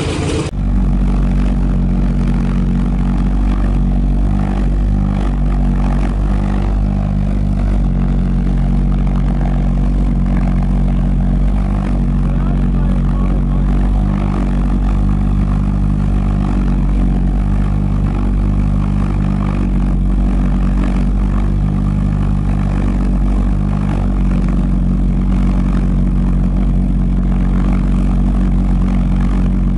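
Large vintage piston aircraft engine running steadily on a test stand, with its propeller turning. A different engine sound cuts off abruptly about half a second in.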